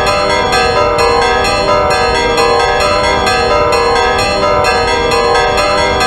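Church bells ringing from the bell tower: several bells struck in quick succession, a few strikes a second, their tones overlapping and ringing on continuously.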